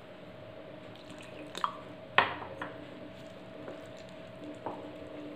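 Wooden spoon stirring wet wheat-flour batter in a ceramic bowl, with a few sharp knocks of the spoon against the bowl, the loudest about two seconds in.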